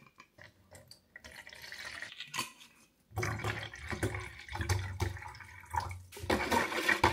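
Liquid poured into a plastic tub: a faint trickle about a second in, then a steady, louder pour of water from a large plastic bottle starting about three seconds in. Near the end come clicks and rattling as the plastic bottle is handled and capped.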